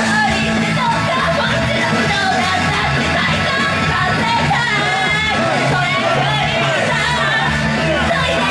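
Live pop-rock song heard through a club PA: a young woman singing lead into a microphone over loud, steady backing music.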